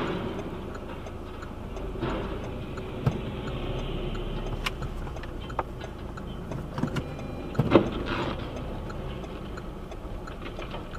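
Inside a moving car: the car's own engine and road noise with a steady light ticking. Several sharp knocks and thumps, the loudest nearly eight seconds in, come as a timber truck's trailer strikes and brings down a roadside lamp post.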